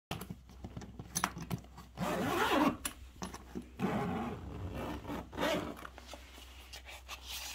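Zipper on a soft fabric pet carrier being pulled open in a few rasping strokes, with clicks and scrapes of the zipper pull and fabric.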